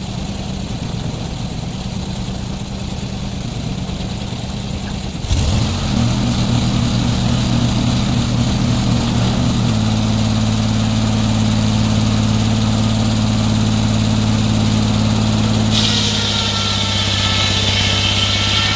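Sawmill engine running steadily. It speeds up about five seconds in, and near the end a higher whine joins it as the saw works into the log.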